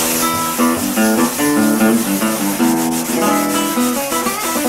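Background guitar music: a run of plucked guitar notes changing every fraction of a second.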